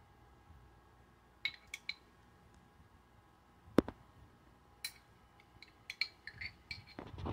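A metal fork clinking against the inside of a glass jar of pickled jalapeño slices: scattered light clinks and taps, with one sharp knock about midway and a quick run of clinks near the end.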